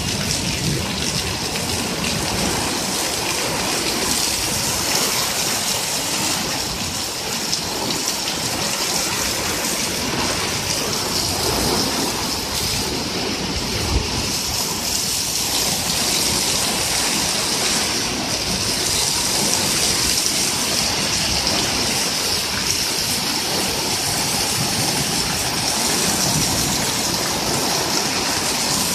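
Heavy downpour: steady, loud rain falling on the paving, lawn and patio cover.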